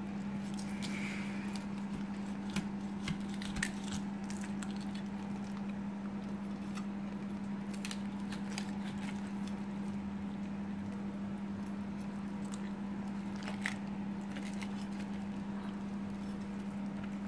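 Large kitchen knife cutting through a raw salmon head on a wooden chopping board: a scattered handful of sharp clicks and crunches as the blade works through the soft bone, over a steady low hum.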